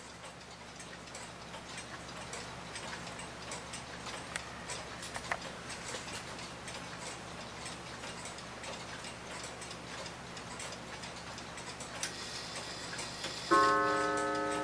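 1900s New Haven Clock Co. mantel clock movement ticking steadily. Near the end, after a brief whir, the clock strikes its gong once, and the note rings on, soft and slowly fading.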